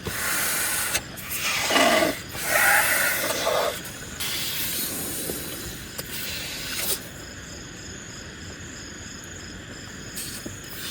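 Rustling and brushing of tent fabric as people climb into a tent, in three bursts over the first four seconds, then a steady hiss that drops quieter about seven seconds in.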